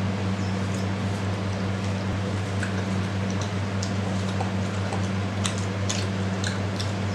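Steady low hum over a constant hiss, with scattered soft clicks and squishes from eating rice and curry by hand, more frequent in the second half.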